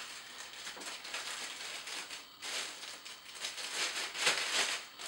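Clear plastic bag crinkling and rustling as the glass bottle cutter's base plate is worked out of it, in irregular spells that are loudest about halfway through and near the end.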